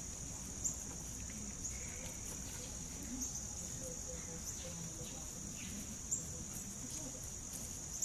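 A steady, high-pitched insect chorus drones without a break, with a few faint clicks and taps over it.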